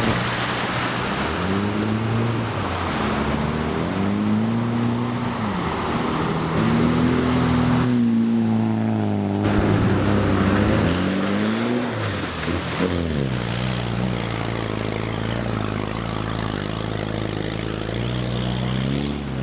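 Off-road vehicle engines revving up and down again and again, the pitch rising and falling, with sudden jumps between passes.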